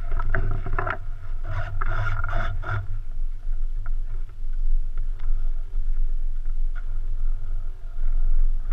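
Low rumble with knocks and scrapes from a GoPro mounted under an electric RC plane as the plane is carried and jostled, with wind on the camera's microphone; the plane's motor is not running. The knocking is busiest in the first three seconds.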